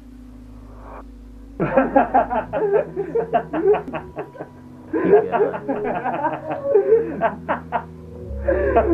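Two men laughing hard in long, rapid bouts that start about a second and a half in, over background music with low held notes.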